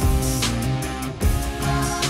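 Background rock music with guitar and drum hits.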